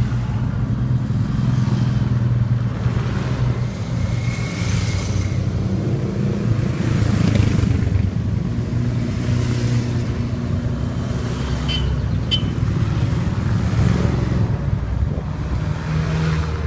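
A line of motorcycles riding past one after another, their engines running steadily, the sound swelling each time a bike goes by. A large touring motorcycle passes close near the end.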